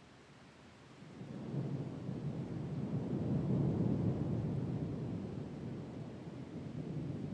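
Thunder rumbling from a squall-line thunderstorm. It starts about a second in, swells to its loudest around the middle, then lingers with a slow fade.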